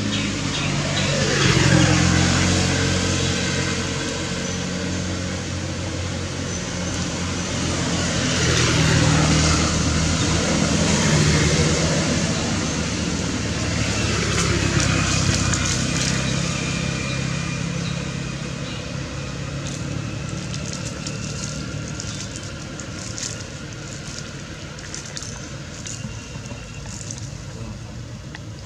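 Road traffic passing, about three vehicles in turn, each swelling up and then falling in pitch as it goes by. Softer short rustles and clicks follow near the end.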